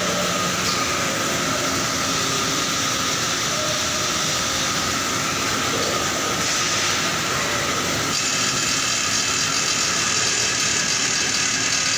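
Steady din of factory machinery with a constant hiss and a few steady hums; a high whine joins in about eight seconds in.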